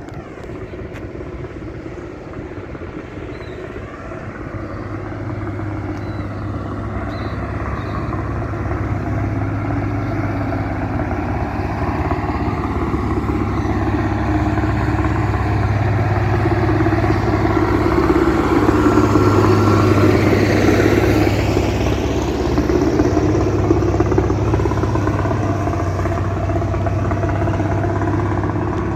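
Motor grader's diesel engine running under load as the machine works the road bed. It grows louder over the first two-thirds, is loudest about twenty seconds in as the grader draws closest, then eases slightly.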